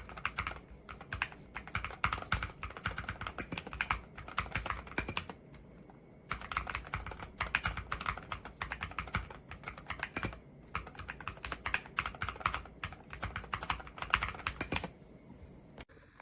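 Typing on a MonsGeek FUN60 Pro SP keyboard with Akko Glare magnetic switches: a fast run of key clacks, with a pause of about a second near the middle, stopping shortly before the end.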